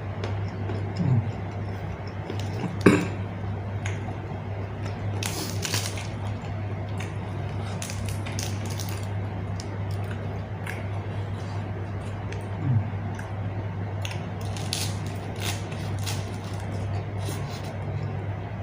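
A person chewing food close to the microphone, with irregular wet smacks and short crunching clicks, over a steady low hum.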